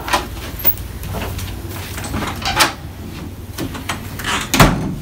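Interior closet doors opened by their knobs: latch clicks and light knocks, the loudest knock coming about four and a half seconds in.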